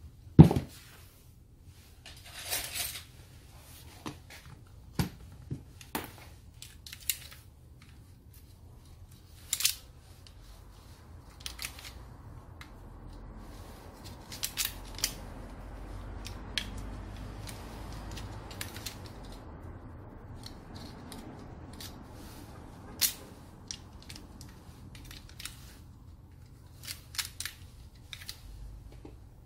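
Scattered clicks, taps and knocks of a hand tool and small parts against a disc grinder's plastic motor housing as it is taken apart, with a sharp knock about half a second in and a stretch of soft scraping and rubbing in the middle.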